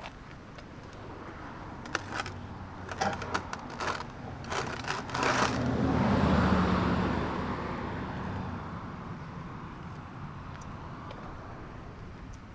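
A car passing on the road, swelling to its loudest about six seconds in and fading slowly away. Before it comes a run of sharp clicks and knocks.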